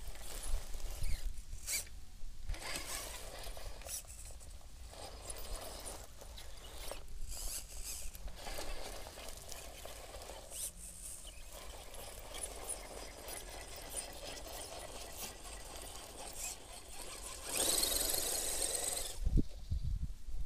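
Tyres of a 1:10 scale RC rock crawler scrabbling and scraping for grip as it climbs a rubberized slope, with uneven rustling and scattered clicks. Near the end comes a louder rush of hiss for about a second and a half, then a few low thumps.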